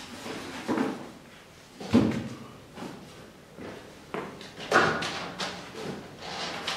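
A wooden bookshelf and books being handled on a stone floor: a series of wooden knocks and thumps, the sharpest about two seconds in. In the second half books clatter as the shelf is tipped up on end.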